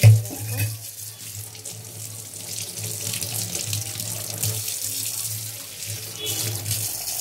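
Tap water running into a stainless steel kitchen sink, splashing over a hand held under the stream. A sharp knock at the very start.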